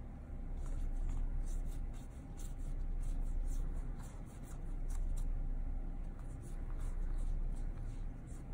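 Magic: The Gathering cards being sorted by hand, sliding and flicking against one another in quick, irregular soft ticks, over a steady low hum.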